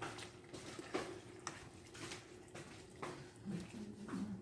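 Faint, scattered clicks and taps of kitchen utensils and dishes being handled, about six over a few seconds, over a steady low hum.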